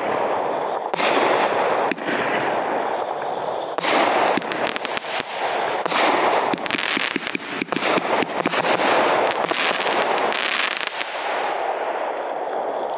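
A 30-shot 350-gram consumer firework cake firing: single shots go off about a second apart, then a long run of many quick pops and crackles. The crackling thins out near the end as the cake finishes.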